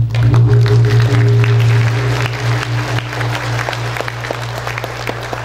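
Large bossed hanging gong struck with a padded mallet to mark the formal opening of a meeting, its deep hum ringing on and slowly fading. Audience applause claps over it.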